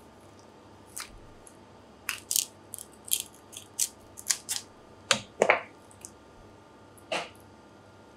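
A live golden cuttlefish (Sepia esculenta) being pulled apart by hand as its white cuttlebone is drawn out of the mantle: irregular sharp wet clicks and crackles, with the loudest squelch about five seconds in.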